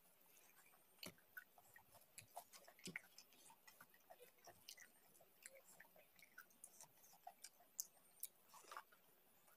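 Faint, close-miked eating sounds: many short wet clicks of chewing and lip-smacking, with the soft squish of fingers mixing rice and curry on a steel plate.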